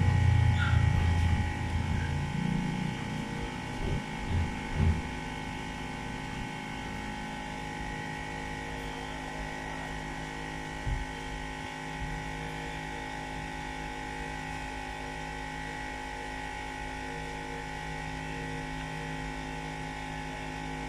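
Steady electrical hum made of several fixed tones, with a louder low rumble in the first couple of seconds and a few soft knocks around four to five seconds in and again near eleven seconds.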